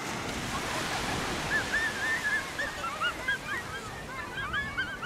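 Shallow surf washing on a sandy beach, with many short, quick bird calls overlapping from about a second and a half in.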